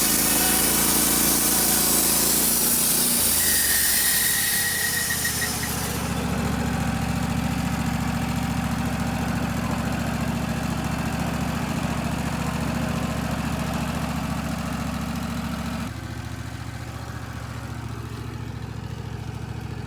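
Wood-Mizer LT15 Wide band sawmill cutting through a pine log, the blade hissing over the engine, with a brief high whistle about four seconds in. The cut ends about six seconds in and the engine runs on steadily, then drops to a lower speed about sixteen seconds in.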